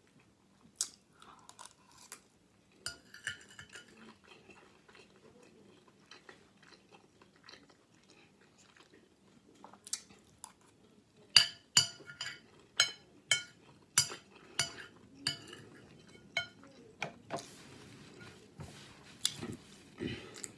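Close eating sounds: a spoon and fork clinking and scraping on a ceramic plate, and chewing with sharp wet mouth clicks, which come in a run of about two a second from about halfway through.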